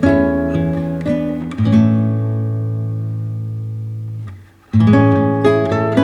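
Background music on acoustic guitar: plucked notes, then a chord left ringing for a couple of seconds, a brief pause, and plucking again near the end.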